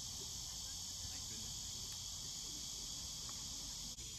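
Steady high-pitched insect chorus, a continuous shrill drone, over a low rumble.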